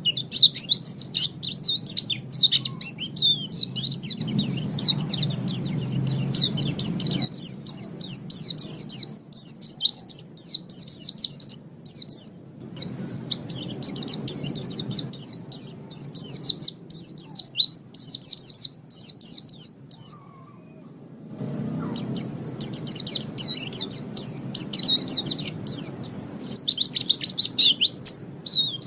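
A white-eye (pleci) singing a long, rapid, high twittering song of quick chirps, breaking off for about a second roughly two-thirds of the way through. A low background noise comes and goes beneath it.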